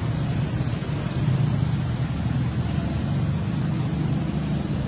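Steady low rumble of street traffic, with motorcycles riding through a flooded road.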